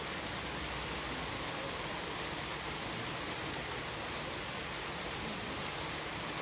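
Steady rushing of running water, an even hiss with no separate sounds standing out.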